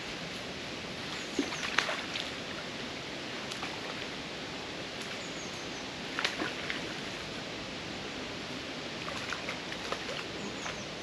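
Outdoor ambience at the water's edge: a steady even rush of noise, with a few sharp clicks, the loudest about two and six seconds in, and faint short high bird chirps.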